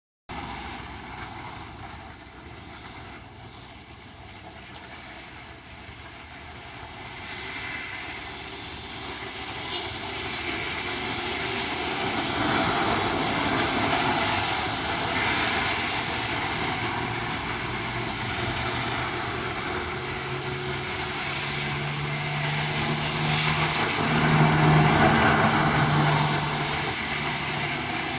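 Wind and rain making a steady rushing noise that builds after the first few seconds. A low steady hum joins it about two-thirds of the way through.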